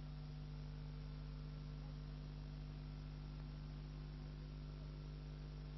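Steady electrical hum with a faint hiss from a blank stretch of analogue videotape.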